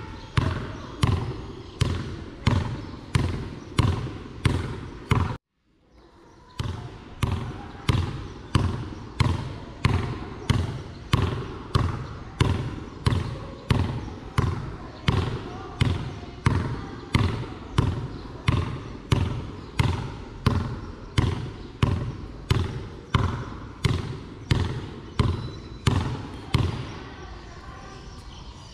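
A basketball dribbled on a concrete court in a steady rhythm of about two bounces a second, each bounce a sharp thud. The bouncing cuts out for about a second early on, then stops a couple of seconds before the end.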